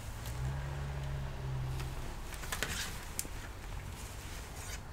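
Faint handling sounds as a laptop CPU heatsink is laid back onto the motherboard: a few light clicks and a short scrape about halfway through, over a low steady hum.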